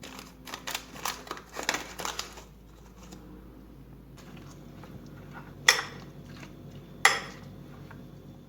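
Kitchenware being handled: about two seconds of light clattering and crinkling, then two sharp clinks about a second and a half apart.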